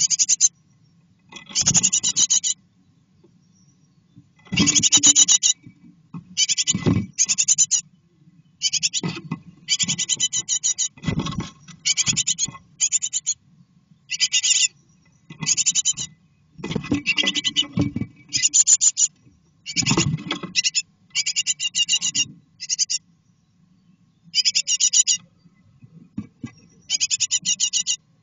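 Great tit nestlings in a nest box begging, with repeated bursts of rapid, high-pitched calls every second or two, mixed with scratching and thumps as the chicks shuffle and flap on the nest material.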